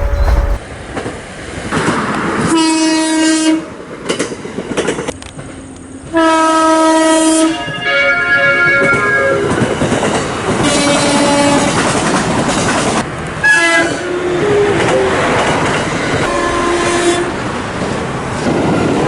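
Several Japanese electric train horn blasts in a row, differing in pitch from one to the next, each about a second long, with a run of short stepping tones about two-thirds of the way through. They sound over the noise of trains running past on the rails.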